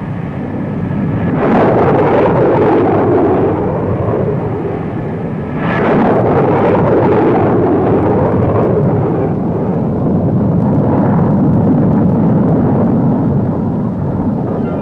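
Loud jet aircraft engine noise, surging sharply about a second and a half in and again about six seconds in, then holding at a heavy, steady rush.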